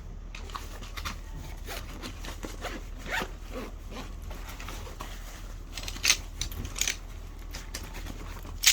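Light handling noises: scattered rustling and scraping strokes with small clicks, two sharper clicks about six and seven seconds in, over a steady low hum.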